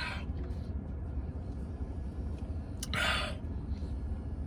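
Steady low rumble inside a parked car's cabin, with a brief rustle about three seconds in.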